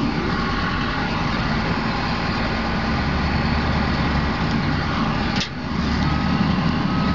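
A heavy motor vehicle's engine idling steadily, a low rumble with a hum. Near the end a vehicle's reversing alarm starts beeping, a high steady tone in short, evenly spaced pulses.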